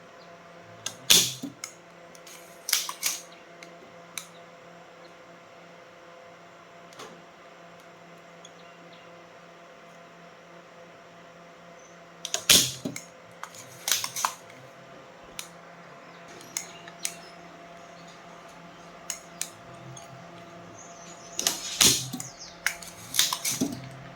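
Sharp clicks and clinks of tools and small metal parts being handled during repair work. They come in a few clusters: near the start, in the middle and again near the end. Under them runs a faint steady hum.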